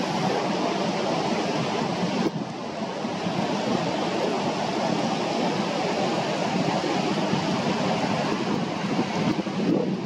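Steady rush of river water spilling over a weir and running among rocks. About two seconds in, the rush drops slightly and turns a little duller.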